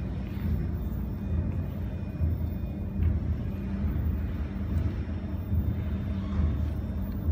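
Steady low rumble of background noise with a faint hum.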